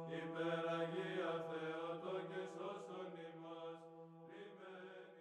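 Chanting voices over a steady low held drone note, fading out near the end.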